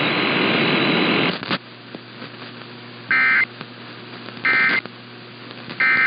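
AM radio static that cuts off about one and a half seconds in, leaving a faint hum, then three short, identical digital data bursts about a second apart: the EAS (SAME) end-of-message code tones that close an emergency alert broadcast.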